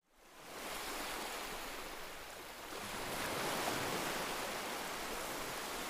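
Beach ambience of surf and wind: a steady rush of breaking waves that fades in just after the start and grows a little louder about halfway through.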